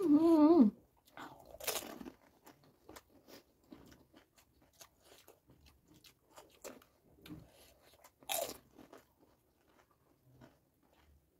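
People chewing crisp panipuri shells filled with spicy water and potato, many small crunching and mouth sounds. Two louder crunches come about two seconds in and about eight seconds in.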